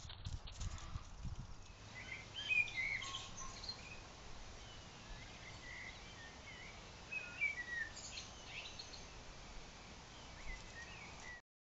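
Small birds singing and calling, a scatter of short chirps and twittering phrases, picked up by a trail camera's microphone. In the first two seconds there is a low rumble of wind on the microphone, and the sound cuts off near the end.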